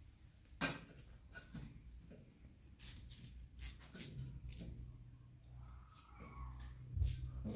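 Irregular small clicks, taps and rattles of a black plastic wall bracket and its hardware being handled and pressed against a wall during fitting, with a sharper knock near the start and a thump about seven seconds in.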